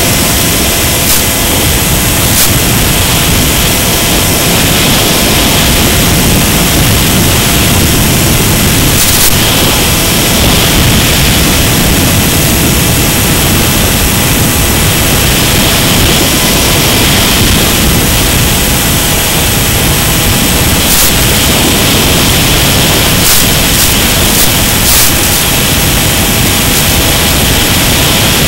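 Steady, loud static hiss from the analog FPV video link's audio channel, with faint steady tones under it and a few brief crackles, several of them near the end.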